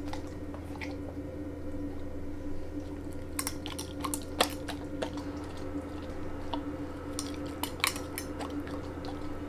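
Husky taking meat off a metal fork and chewing: wet mouth smacks and clicks, with the fork tapping against teeth, coming in two bunches about four and eight seconds in, over a steady low hum.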